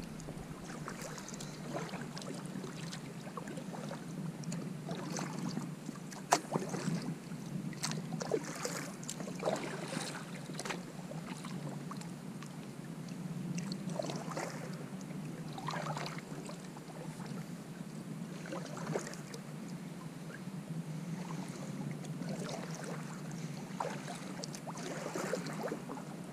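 Kayak moving on a creek, with irregular splashes and drips from paddle strokes over a steady low rumble.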